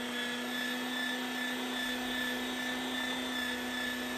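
Electric meat grinder running with a steady motor hum, grinding cubed goose and pork through the coarse plate on the first grind.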